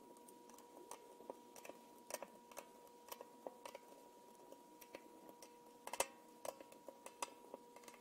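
Small screwdriver turning screws into a resin vat's metal frame: faint, irregular clicks and ticks as the tip seats and the screws thread in, with a quick cluster of louder clicks about six seconds in.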